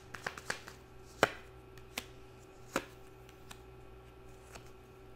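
Tarot cards clicking as a deck is shuffled in the hands: a handful of sharp card snaps, the loudest about a second in, then fewer and fainter, over a faint steady hum.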